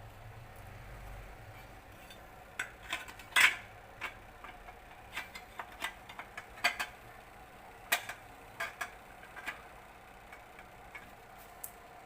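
Irregular metallic clicks and clinks of small engine parts or hand tools being handled during work on a small engine, the loudest about three and a half seconds in.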